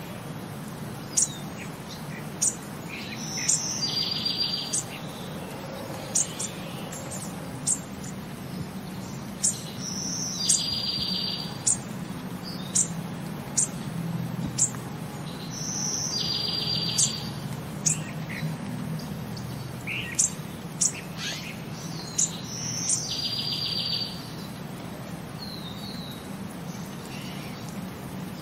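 Birdsong: sharp high chirps and short buzzy trills that repeat in the same pattern about every six and a half seconds, over a steady low hum.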